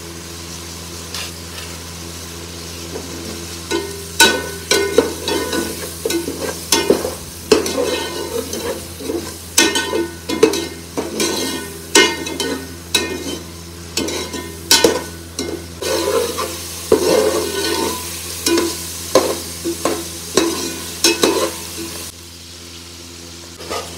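Chicken pieces sizzling in hot oil and masala in an aluminium pot. From about four seconds in, a metal slotted spoon stirs them, scraping and knocking against the pot about once a second. The sound drops near the end.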